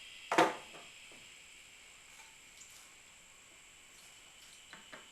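A single sharp knock of something hard being set down or struck, about half a second in, then low background with a couple of faint clicks near the end.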